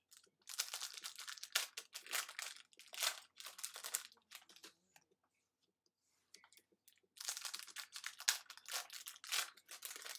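Trading cards being handled and sorted by hand, rustling and crinkling in two spells: from about half a second to four seconds in, and again from about seven seconds on.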